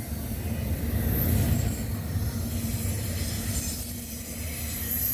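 CPKC freight train passing at close range: a steady low rumble of rolling cars, swelling about a second in, as an EMD GP-series diesel locomotive in the consist draws near, with a steady engine hum. A brief thin high wheel squeal comes about a second in.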